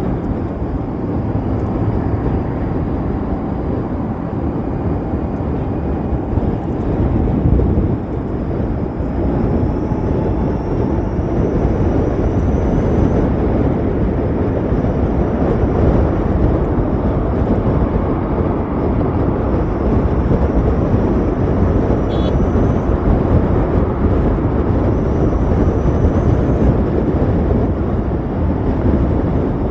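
Steady rush of wind and road noise while riding an Ather 450X electric scooter, with a faint whine that rises in pitch now and then.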